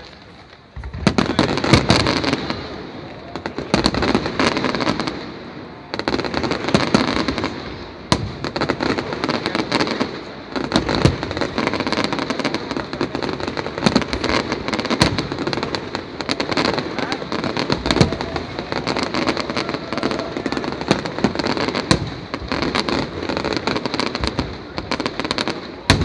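Fireworks display: a dense, continuous run of crackling pops and sharp bangs. It starts about a second in and swells and eases every few seconds.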